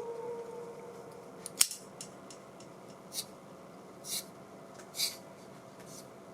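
Electronic noises from an audio mixer: a held tone fading away in the first second, then scattered short scratchy clicks and brief hiss bursts about once a second.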